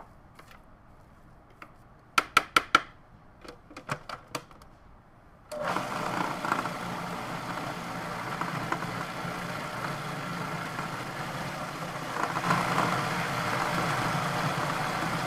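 A few sharp plastic clicks as the lid goes back onto a food processor bowl, then about five and a half seconds in the food processor's motor starts and runs steadily for about ten seconds, blending a compound butter of cubed butter, garlic, shallots and tasso, and stops abruptly near the end.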